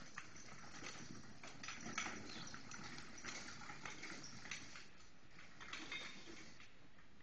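Faint hoofbeats of a Shetland pony moving in harness on dirt arena footing, as a string of soft, irregular thuds.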